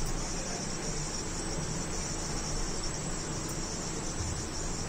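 Steady high-pitched drone of an insect chorus, unchanging throughout.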